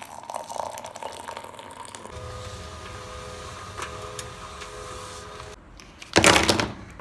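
Milk pouring into a ceramic mug. After about two seconds, a printer runs with a steady hum and a few steady tones. Near the end comes a short, loud burst of noise.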